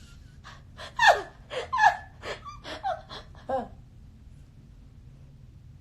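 A woman laughing in a string of short, breathy bursts for about three seconds, then stopping.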